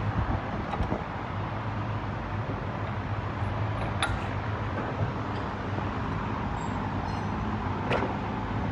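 Steady low hum of workshop background noise, with a few short, sharp metal clicks, about four seconds in and again near the end, as a rear differential on a transmission jack is worked into place under the car.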